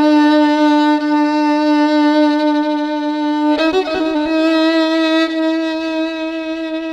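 Background music: a long held note on a bowed-string-like instrument, moving to a second held note about three and a half seconds in.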